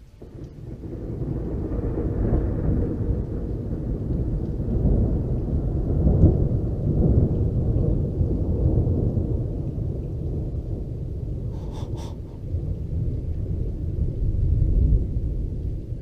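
Long rolling thunder: a low rumble that builds over the first couple of seconds, then swells about six seconds in and again near the end.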